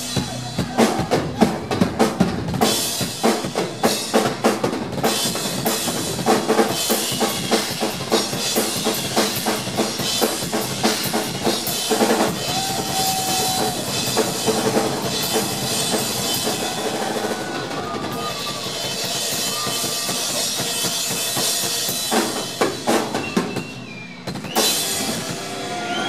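Live rock band playing loudly on stage, the drum kit loudest with a dense run of bass drum, snare and cymbal hits over electric guitars.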